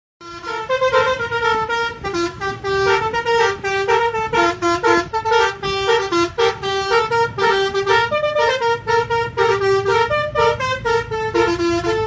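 Indonesian 'telolet' multi-tone bus horn of the Basuri type playing a quick tune of stepped, held notes, over a low rumble.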